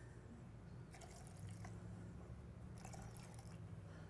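Faint trickle of alcohol tincture being poured from a bottle into a measuring cup, over a low steady hum.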